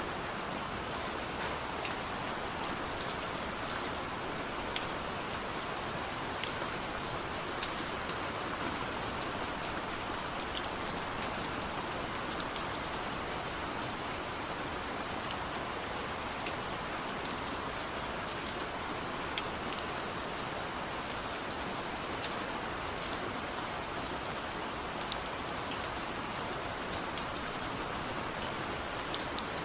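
Steady rain falling, an even hiss with scattered distinct drop ticks on a surface.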